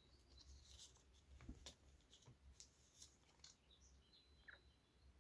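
Near silence with faint, scattered clicks and light paper rustling: Pokémon cards and homemade paper packs being handled.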